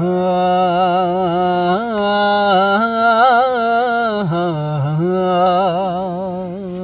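A man singing unaccompanied, opening a Punjabi devotional verse with one long drawn-out note that wavers and shifts in pitch, fading a little near the end.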